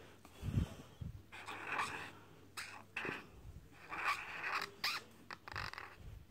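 Felt-tip highlighter pen writing on paper: several short strokes as letters are drawn, with a low thump about half a second in.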